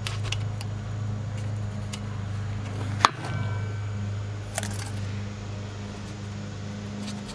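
Scattered light metallic clicks and scrapes as a tool works the parking-brake shoe adjuster behind the rear brake rotor. One sharp metal click about three seconds in rings briefly. A steady low hum runs underneath.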